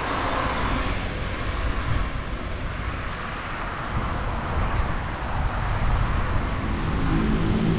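Wind and road noise on a moving bicycle's camera microphone, a steady rushing rumble, with passing car traffic. Near the end a low steady hum joins in.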